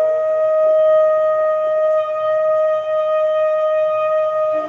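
Background music: a wind instrument holding one long steady note, stepping down to a lower note near the end.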